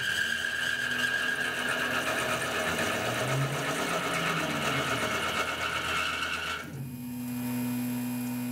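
A CNC mill's spindle driving a single-form 60-degree V thread mill around a 1018 steel bar with coolant flowing, making a steady, high-pitched cutting whine. The whine cuts off abruptly about seven seconds in, leaving a low steady hum.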